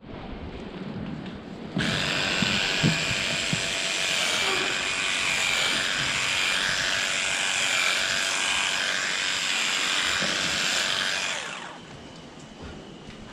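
Electric livestock clippers running as they trim a cow's tail hair: a steady high buzz that starts about two seconds in and stops shortly before the end.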